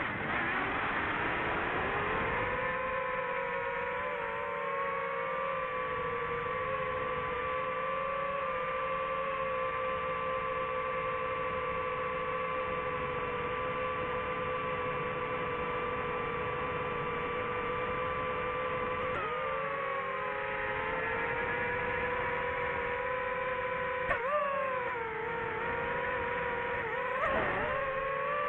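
DJI FPV drone's motors and propellers whining steadily in flight, the pitch dipping and rising again a few times in the second half as the throttle changes.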